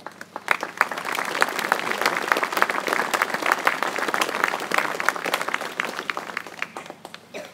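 A large crowd applauding, many hands clapping at once. It swells up within the first second, holds steady, then dies away near the end.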